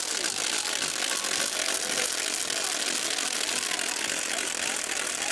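Crowd of people walking in a procession: indistinct voices mingled with a steady, rough hiss.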